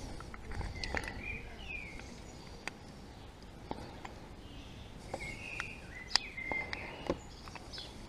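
A few faint metal clicks from brake pads being pushed and seated by hand into a motorcycle front brake caliper, with birds chirping in the background.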